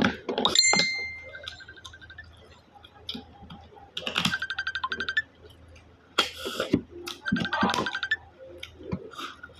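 Freshwater snails in coconut-milk sauce being sucked out of their shells: repeated wet, squeaky sucking slurps every few seconds, with a short ringing clink of a shell about half a second in.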